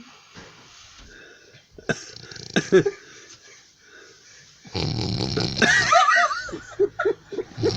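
A person snoring: a few scattered snorts at first, then from about halfway in a loud, noisy snore with squeaky rising-and-falling notes, followed by a run of short snorts about three a second.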